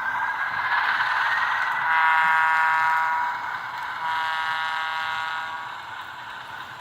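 Onboard sound decoder of a Bachmann HO Alco S2 model diesel locomotive, heard through the model's small speaker. The prime-mover sound rises in pitch as the locomotive throttles up to move off, then the horn sounds twice, each blast about a second and a half long.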